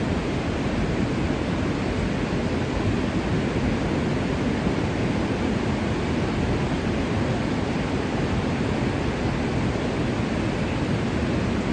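Swat River in flood: a steady, unbroken rush of fast muddy floodwater, heaviest in its deep low rumble.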